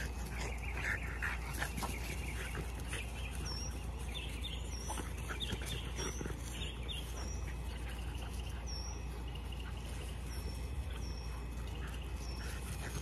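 French bulldog puppies playing and wrestling, with small squeaks and grunts. Over them a bird repeats a short high chirp about once a second, starting a few seconds in.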